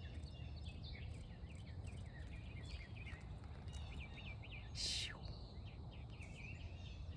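Small birds chirping and twittering softly in short rapid notes, over a low steady background rumble, with a brief hiss about five seconds in.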